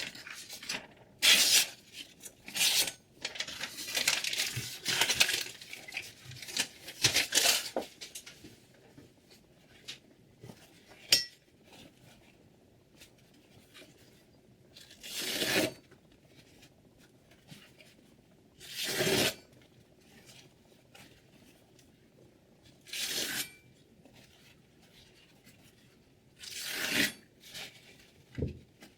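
Chef's knife blade strokes: a quick run of short scraping strokes over the first eight seconds, then four single longer strokes a few seconds apart.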